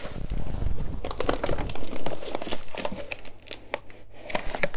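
Rummaging in a kitchen wall cupboard: plastic food packets crinkling and rustling, with many small knocks as items are moved about.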